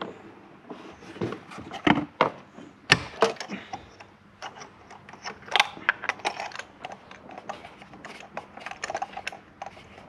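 Ratchet and spark plug socket clicking and clinking as spark plugs are tightened into the cylinder head. The clicks come irregularly, the sharpest about two and three seconds in, with short quick runs of clicks later on.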